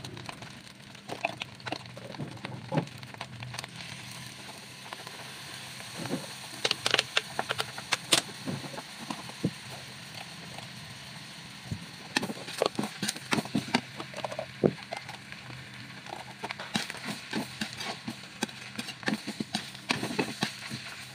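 Fried rice sizzling in a metal wok, with a metal spatula scraping and clacking against the pan in irregular runs as the rice is stir-fried.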